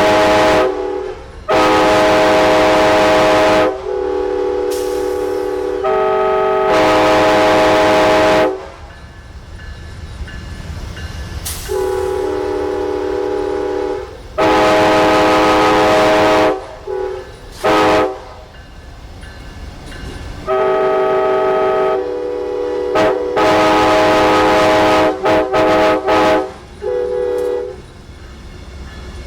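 Multi-chime train air horns blowing a series of loud chords: several long blasts of about two seconds each, then a run of shorter stabs near the end. A steady rumble of rail traffic fills the gaps between blasts.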